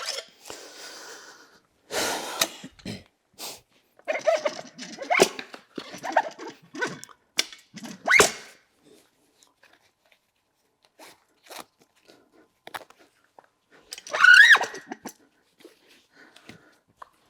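Irregular knocks, clicks and short rubber squeaks from handling a motorcycle wheel and newly fitted tire on a manual tire changer, with a louder squeak about eight seconds in and another near the end.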